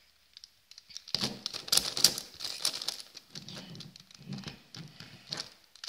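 Plastic Megaminx puzzle being turned quickly by hand: a fast, irregular run of clicks and clacks as its faces snap round, starting about a second in.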